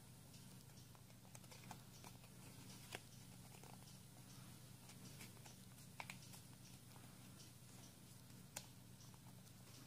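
Faint crackles and clicks of a folded paper origami cube being pressed and shaped by hand, a few sharper crackles standing out, over a low steady hum.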